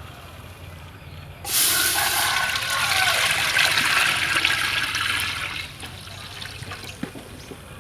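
Water poured or gushing into a vessel, starting suddenly about a second and a half in and tailing off after about four seconds.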